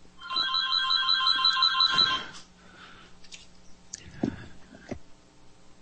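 An electronic telephone ringer trilling once, a rapid warbling ring lasting about two seconds. A couple of short knocks follow, the sharpest about four seconds in.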